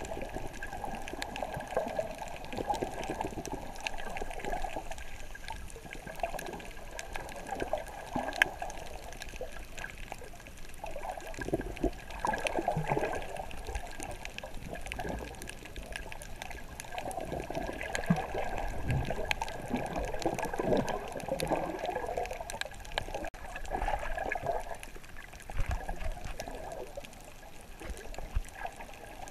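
Water sloshing and gurgling, heard underwater, coming in uneven swells with scattered faint clicks.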